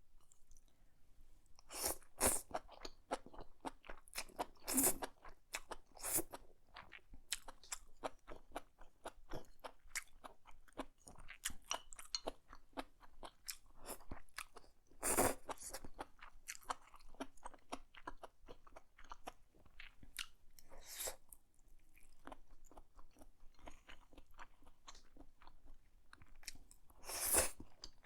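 Close-miked chewing and crunching of a meal of black bean noodles, enoki mushrooms and shrimp, with moist clicks going on throughout and about five louder bites or mouthfuls standing out.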